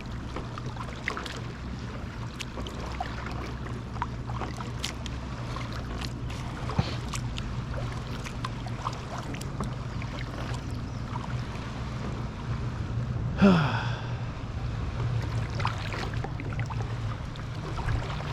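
Kayak paddling on a lake: the paddle dipping and dripping in small irregular splashes and water lapping at the hull, over a steady low rumble. About thirteen seconds in there is one brief pitched sound, the loudest moment.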